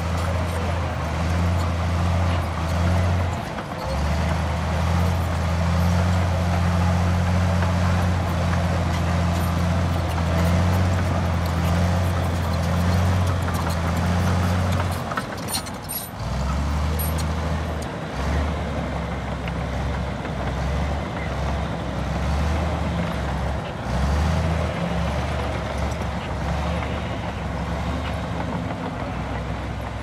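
Komatsu D65P-11 crawler bulldozer's diesel engine running under load as it pushes fill, a steady low drone. About halfway through, the engine note drops lower and turns uneven.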